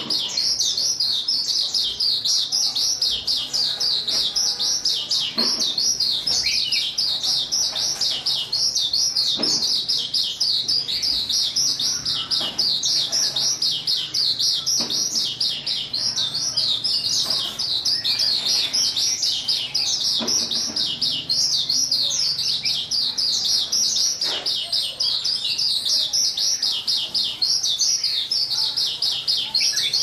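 Small caged songbird singing a continuous, rapid, high twittering song without pause, with a few faint knocks now and then.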